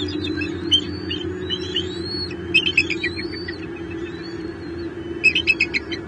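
Birds calling: rising whistled notes throughout, with a burst of rapid high chirps about two and a half seconds in and another near the end, over a steady low hum.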